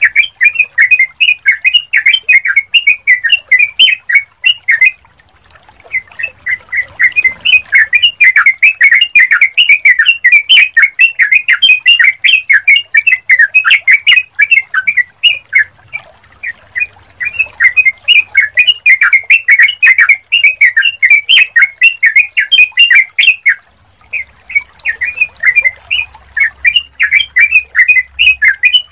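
Yellow-vented bulbul (trucukan) calling in long runs of rapid, loud chattering notes, with short pauses about 5, 16 and 24 seconds in. It is a lure call, meant to set other bulbuls answering.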